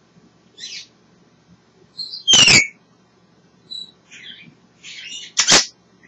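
African grey parrot calling in short, separate bursts: a brief call, then a loud whistle-like call that slides in pitch, a few softer chirps, and another loud, sharp call near the end.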